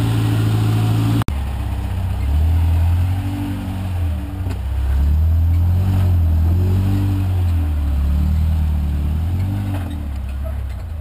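1985 Toyota pickup's engine revving up and down under load as the truck crawls over rock ledges, its pitch rising and falling again and again. The sound breaks off sharply about a second in and starts again.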